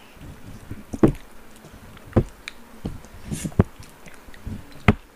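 Close-up eating sounds: wet mouth smacks and chewing, with scattered sharp clicks and knocks as a spoon and fingers scrape yogurt from clay pots. The loudest clicks come about a second in, at two seconds, a little past three and a half seconds, and near the end.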